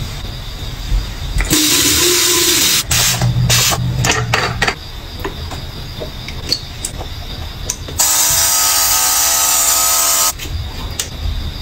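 Handheld airbrush-style facial mist sprayer with a built-in mini compressor running, hissing out a fine spray over a steady motor whine for about two seconds near the end. Earlier there is a shorter loud hiss, about a second and a half in, followed by a string of clicks and knocks.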